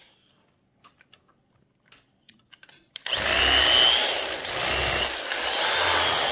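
Cuisinart electric carving knife: after about three seconds of near quiet with a few faint clicks, the motor switches on again and runs with a high whine that dips and rises as the blades saw through roast pork.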